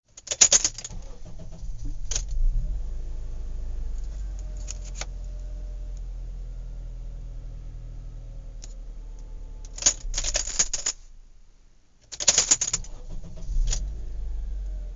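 Horse-farm activity: several short bursts of clattering and jingling over a low steady rumble, with a brief lull a little before twelve seconds in.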